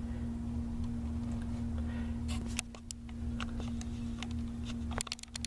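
Scattered light clicks and taps of a small vinyl figure being handled, a few in the middle and a quick cluster near the end, over a steady low hum.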